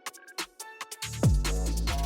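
Electronic dance music with a heavy bass beat: the beat drops out briefly, leaving hi-hat ticks and a few synth notes, then the kick drum and bass come back in just over a second in.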